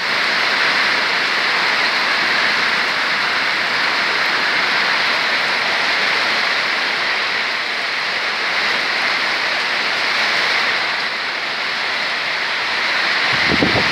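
Heavy rain from a summer storm pouring down in a steady, even hiss. Near the end, gusts of wind start buffeting the microphone.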